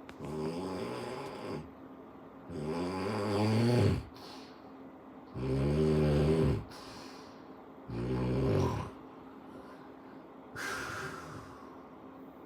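Snoring: five pitched, rattling snores, each about a second long, coming at an even rhythm of roughly one every two and a half seconds.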